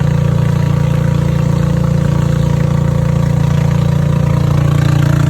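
Small passenger boat's engine running steadily with a deep, even hum, getting a little louder near the end.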